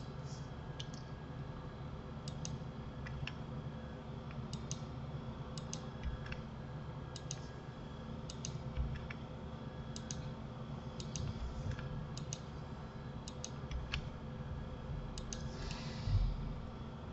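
Computer mouse and keyboard clicks, scattered irregularly and often in quick pairs, over a steady background hum, with a louder thump near the end.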